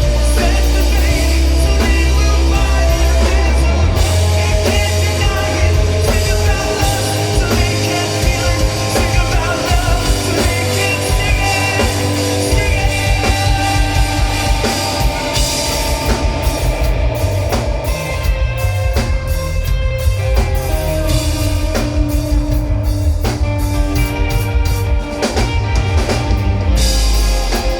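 Rock band playing live: a drum kit keeping a steady beat under a singing voice and instruments, loud throughout.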